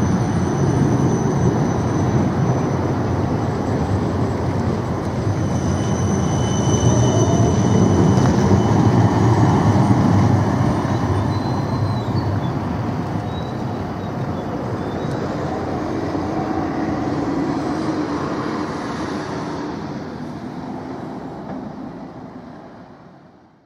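Siemens Combino Plus low-floor tram running past on street track: the rumble of its wheels and drive grows louder as it passes, then fades as it pulls away around a curve. A faint thin high tone rides over it in the first half.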